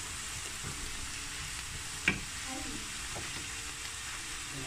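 Sliced bell peppers and onion sizzling in a nonstick frying pan while a wooden spatula stirs them, with one sharp knock about two seconds in.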